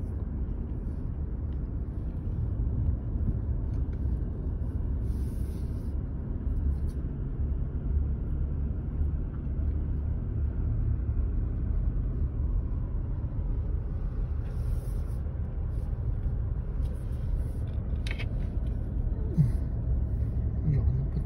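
Car driving along a winding road, heard from inside the cabin: a steady low rumble of engine and tyre noise.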